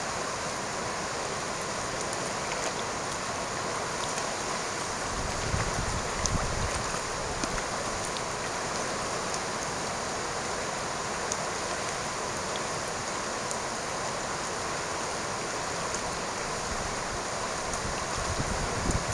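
Fast-flowing river rapids rushing steadily, with a few brief low thumps about six seconds in.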